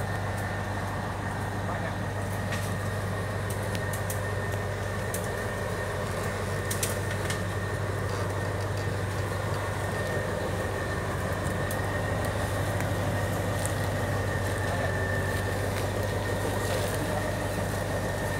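Military tank's engine running steadily: a constant low drone with a thin steady whine above it.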